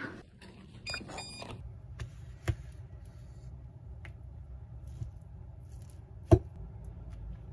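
A short chime rings about a second in, then a metal spoon clicks against a disposable bowl while mixing rice, over a steady low hum. The loudest click comes near the end.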